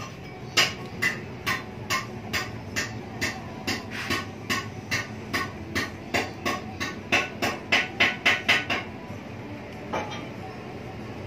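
Stainless steel motorcycle exhaust headers being tapped, giving sharp, ringing metal clinks about twice a second that quicken to about four a second. They stop, and then one more clink comes near the end.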